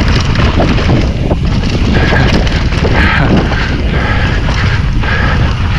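Wind buffeting the microphone on a mountain bike descent, over a constant low rumble, with frequent small knocks and rattles from the bike on rough trail.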